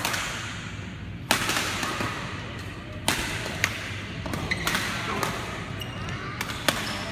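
Badminton rackets striking a shuttlecock during a doubles rally, a series of sharp, separate hits about a second apart.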